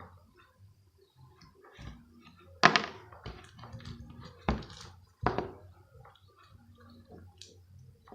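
Slime being squeezed and poked, giving wet squelches and sharp popping clicks. The loudest pop comes about two and a half seconds in, with two more a couple of seconds later.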